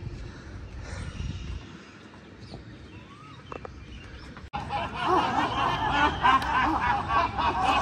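Quiet park ambience with a few bird chirps, then, about four and a half seconds in, a group of many people laughing together loudly.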